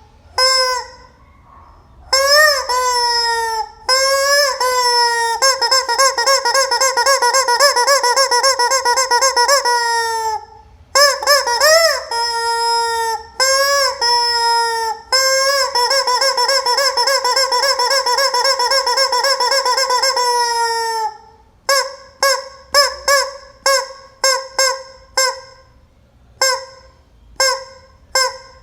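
Rubber squeaky chicken toy being squeezed, letting out loud honking squawks. Two long held, wavering squawks come in the middle, then a run of short squawks about two a second near the end.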